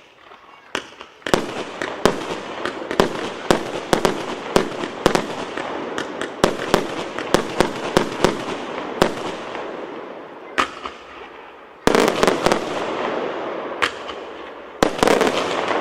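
Flying Dutchman multi-shot fireworks battery (cake) firing, a rapid string of sharp bangs about two a second over a crackling hiss. After a short lull near 11 seconds, a louder cluster of bangs goes off, and another near the end.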